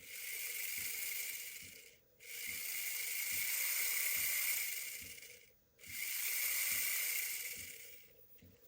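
Tiny electric motor and metal gears of a 1/58-scale LDARC M58 RC monster truck whining in three throttle bursts of two to three seconds each, each swelling and then easing off, a high hissing whine.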